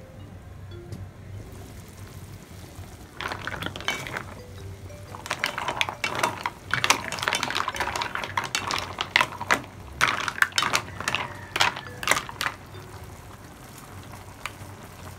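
Cooked green mussels being stirred in a pan with a metal spoon: the shells clatter and clink against each other and the pan in quick irregular clicks for most of the middle of the clip, over a bubbling broth.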